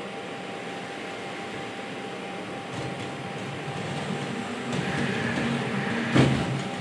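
Valkyrie humanoid robot's drives and cooling hum steadily with a faint held tone. A whir swells about five seconds in as the robot moves, and a single sharp knock comes about six seconds in.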